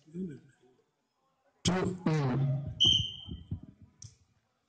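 Loud men's shouting breaks out about a second and a half in during a volleyball rally. It is followed by a short, steady blast of a referee's whistle.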